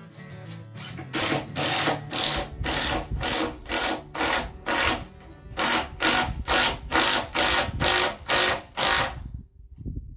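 Cordless drill driving a long screw through a timber rafter, run in short repeated bursts, about two or three a second, which stop about nine seconds in.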